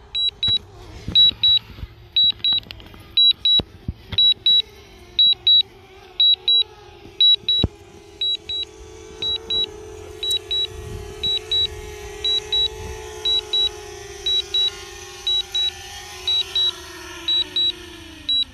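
DJI drone low-battery warning beeping in quick pairs of high beeps, about one pair a second, during its forced landing. Under the beeps runs the steady hum of the drone's propellers, which slides down in pitch and dies away near the end as the motors spin down after touchdown.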